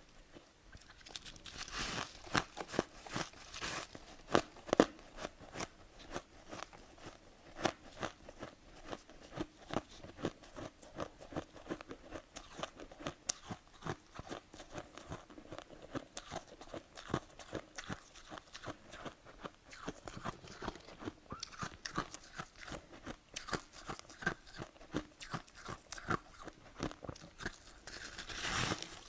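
A person crunching and chewing mouthfuls of powdery freezer frost (snow ice), making an irregular run of crisp, crackling crunches that gets busier for a moment near the end.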